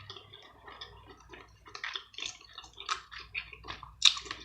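Close-up chewing and wet mouth smacking of a mouthful of seafood boil: irregular small clicks and squishes, with a sharper smack near the end.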